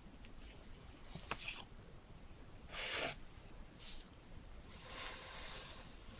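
Gloved hands handling paper and cardboard phone packaging: a few short rustles and scrapes, a sharp one about four seconds in, and a longer sliding rustle near the end.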